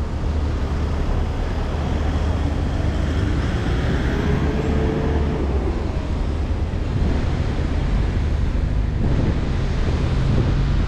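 Wind buffeting the microphone over steady city traffic noise, with tyres on wet road.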